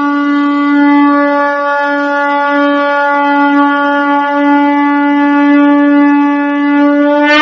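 A loud, steady, reedy note held on one pitch for the whole stretch, bending up slightly just before it cuts off suddenly.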